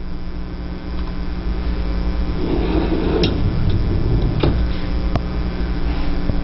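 Steady low hum with a scraping, rustling slide about halfway through and a few sharp clicks and knocks: the wire freezer basket of a Jenn-Air side-by-side refrigerator being slid and handled.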